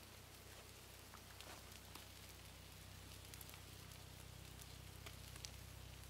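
Faint crackling and sizzling of a small wood fire burning in a portable camping grill with food on it: scattered sharp little pops over a low steady hum.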